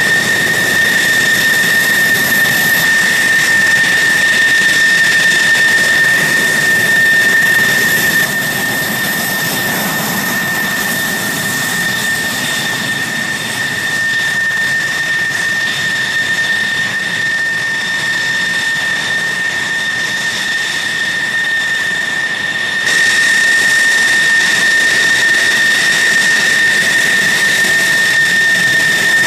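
F-16 Fighting Falcon's single turbofan engine at taxi power: a steady high-pitched whine over a rushing hiss. It drops in loudness about eight seconds in and comes back up past twenty seconds.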